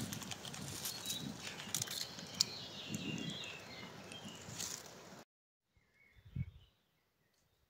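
Dry leaf litter and twigs rustling and crackling with scattered small snaps as hands pull chanterelle mushrooms from the forest floor. It cuts off abruptly about five seconds in to near silence, with one faint thud a second later.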